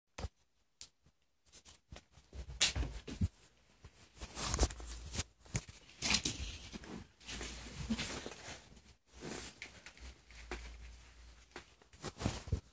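Irregular rustling and crinkling with small knocks, starting after a quiet first second or so: a Lemona vitamin powder-stick packet handled as a cat toy, mixed with the phone rubbing against fabric.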